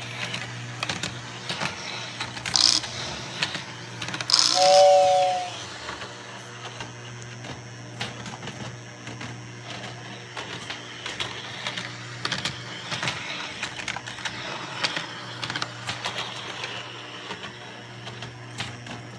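Lionel prewar 616 Flying Yankee O-gauge model train running on three-rail tinplate track: a steady electric hum with rapid clicking of wheels and pickup shoes over the rails. About two and a half seconds in comes a short blast, and about four and a half seconds in the train's whistle blows for under a second, two tones together, the loudest sound here.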